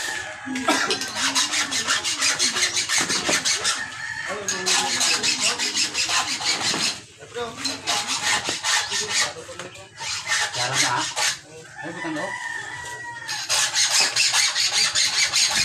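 Runs of quick rasping strokes from a hand file being worked, broken by short pauses. Chickens cluck in the background, and a rooster crows about twelve seconds in.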